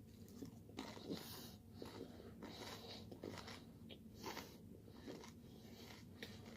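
A person chewing a mouthful of food close to the microphone: faint, irregular soft crunches and mouth sounds.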